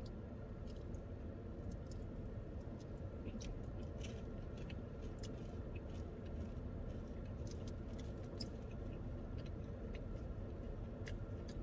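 A person chewing a mouthful of burrito with the mouth closed: faint, scattered small clicks over a steady low hum.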